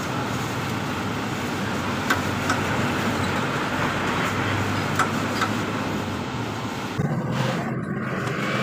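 Steady background noise like passing traffic, with a few faint light clicks, two pairs, as a thin wire is pushed and pulled through the tubes of a radiator core.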